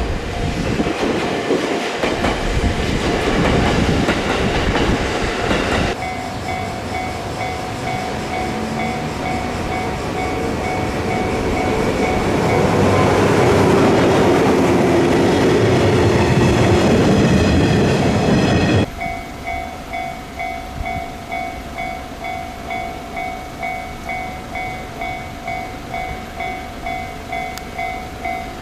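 An E257 series electric train running past, its wheels clattering on the rails, over a Japanese level-crossing alarm ringing in a steady repeating two-tone ding. About two-thirds of the way through the train noise cuts off abruptly, leaving the crossing alarm ringing alone.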